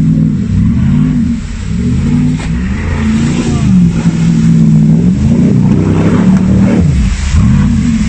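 Off-road SUV engine revving hard as it churns through deep mud, its pitch rising and falling over and over as the throttle is worked.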